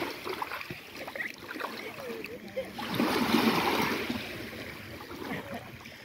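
Small lake waves lapping over a pebble shore, swelling as a wave washes in about three seconds in and easing off after.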